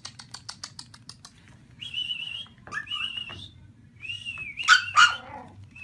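Quick light tapping for about the first second, then three short high-pitched, wavering whistle-like squeaks, the last one the loudest.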